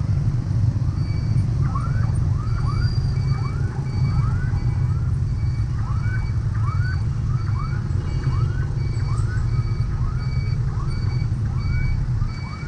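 Street traffic of motorbikes and other vehicles, a steady low rumble, with a high electronic beep repeating about twice a second, like a reversing alarm, and many short irregular chirps over it.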